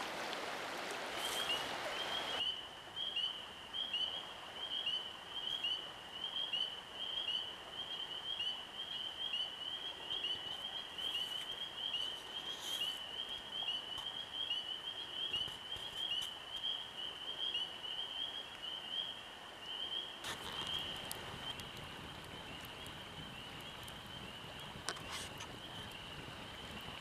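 River water rushing for the first two seconds, then a steady chorus of frogs, their high peeping calls rapid and overlapping. From about twenty seconds in, a campfire crackling faintly with a few pops joins the chorus.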